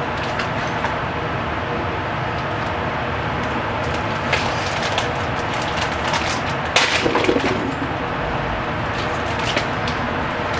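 Steady rushing noise with scattered clicks and light clatter of kitchen things being handled at a stove, and a louder crackling clatter about seven seconds in.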